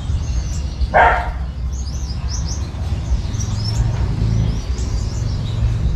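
Caged Gouldian finches chirping: many quick, high, short chirps over a low steady hum, with one louder short sound about a second in.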